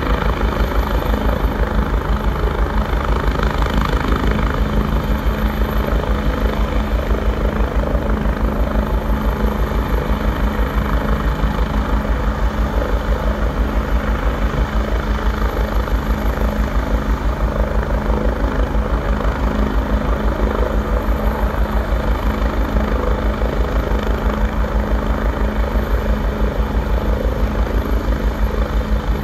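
AgustaWestland AW109S Grand twin-engine helicopter hovering, its rotor giving a steady, fast, even pulsing beat with a steady hum over it.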